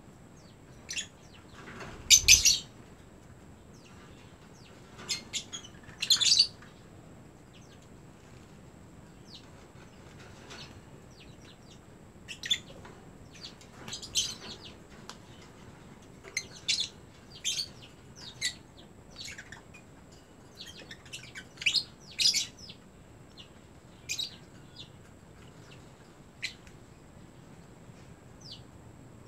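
Pet lovebirds chirping in short, sharp, high calls scattered irregularly, loudest about two and six seconds in, with a single low thump about two seconds in.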